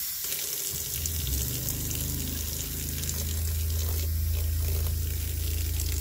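Water running steadily from a faucet into a sink, turned on suddenly, with a low steady hum joining about a second in.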